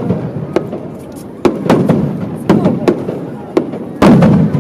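Aerial fireworks display: a series of about six sharp shell bursts, each followed by a rolling low rumble, the loudest burst near the end.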